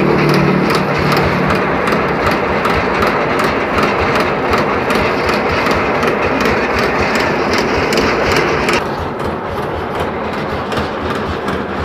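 Engine-driven corn sheller running steadily, a loud continuous engine drone mixed with mechanical rattle. About nine seconds in the sound drops a little and turns duller.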